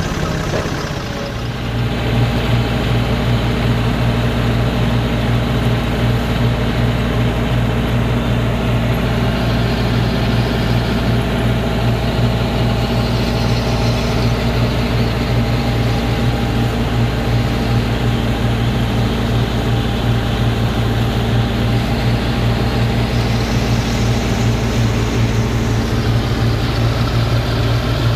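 John Deere tractor engine running steadily while driving a Punni B2B thresher, engine and thresher together giving one continuous low mechanical hum.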